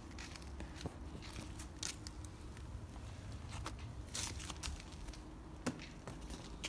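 Kittens at play: soft, irregular rustles and taps of paws scampering and batting a small ball toy across the floor, over a low steady hum. There are a few sharper taps, the clearest about two-thirds of the way in.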